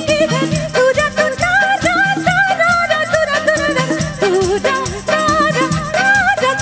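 Live band playing a Bollywood song: a steady percussion beat under a wavering melody line.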